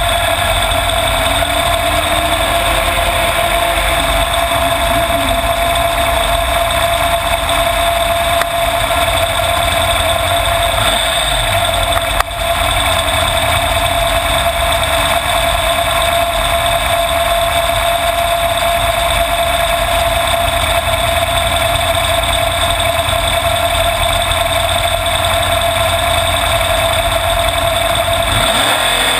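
Dragster's 565-cubic-inch V8, heard close from its own frame, idling steadily at one unchanging pitch while the car waits in line to race. One sharp click about twelve seconds in.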